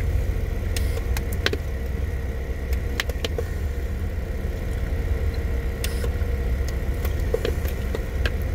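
Car engine idling, heard from inside the cabin as a steady low rumble with a faint steady hum over it. A few light clicks and taps come through at scattered moments.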